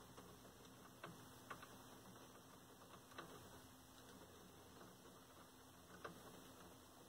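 Near silence with a few faint, scattered clicks as a wiring-harness connector is worked by hand onto a circuit board inside a TV chassis.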